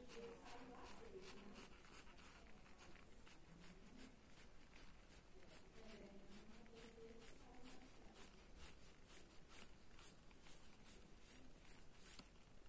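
Faint, rapid scratching of a mechanical pencil's graphite shading on paper, in short even strokes about three a second.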